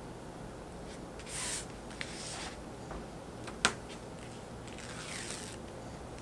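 A few short rustles of nylon fabric and a white tape strip being handled and peeled up, with one sharp click about three and a half seconds in.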